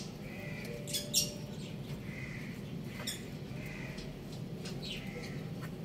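Rooster pecking at rice, a few sharp taps, with three short soft squeaky calls spaced a second or more apart.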